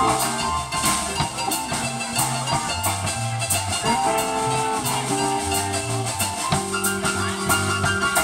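Live blues band playing an instrumental passage: electric guitars, keyboard and drum kit, over a moving line of low notes and regular cymbal hits.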